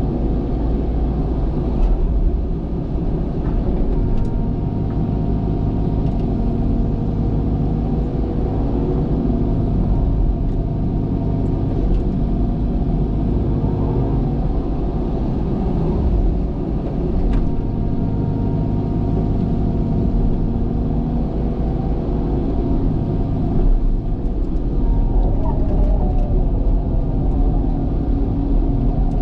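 Diesel engine of a heavy earthmoving machine running steadily with a low rumble, its pitch shifting slightly now and then, with a few faint knocks.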